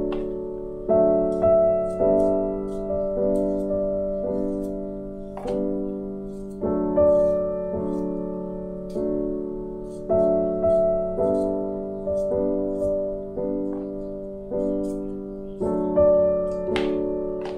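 Background piano music: a slow run of chords, each struck and left to fade before the next.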